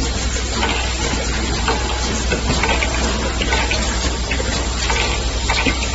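Automatic cap O-ring assembly machine running: a steady hiss-like noise over a constant low hum, with frequent short clicks and clatters from the mechanism.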